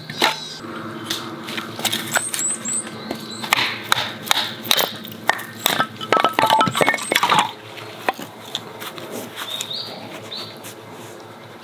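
Batoning small firewood into kindling with a hatchet on a stump: a quick run of sharp knocks and wood cracking and splintering, with split sticks clinking against each other. About eight seconds in it goes quieter, with a knife shaving thin curls off a stick to make a feather stick.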